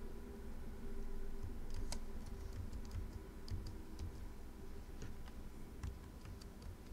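Computer keyboard being typed on: irregular key clicks in small runs, over a faint steady hum.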